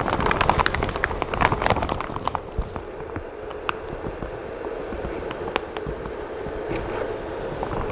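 A resin 3D print being rinsed in alcohol: a steady swish of liquid with many small clicks and knocks from handling the part and its container, busiest in the first couple of seconds.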